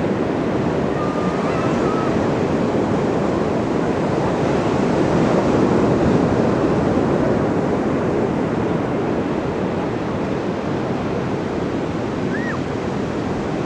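Ocean surf washing onto the shore in a steady rush that swells around the middle and eases toward the end. Two faint short whistles sound over it, one about a second in and one near the end.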